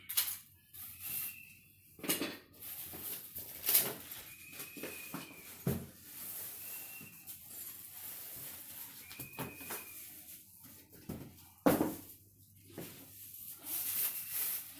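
A large cardboard TV carton being handled and shifted on a tiled floor: irregular scraping, rustling and knocks, with a sharp knock about 4 s in and another near 12 s. A few short high squeaks come through at intervals.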